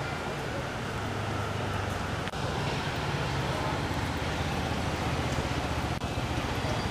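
Street traffic noise: a steady hum of vehicle engines and tyres from passing cars and scooters.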